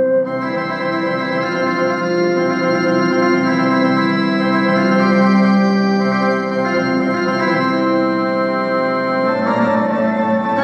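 Casio electronic keyboard playing an original piece in an organ-like voice: sustained chords over a bass line. Brighter high tones come in just after the start, and the chord changes about a second before the end.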